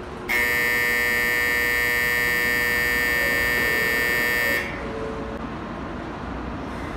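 Station platform buzzer sounding for about four seconds in one harsh, steady, high tone that stops abruptly, over the steady hum of the station with a Shinkansen at the platform.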